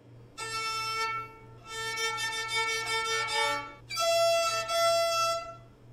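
Solo violin played in three short bowed phrases of held notes, with brief pauses between them.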